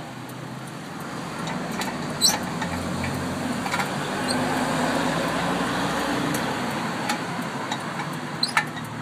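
Road traffic: a motor vehicle's engine and tyre noise swells to a peak about halfway through and then eases off, as a vehicle passes close by. A few sharp metallic clinks are heard, one early, one in the middle and one near the end.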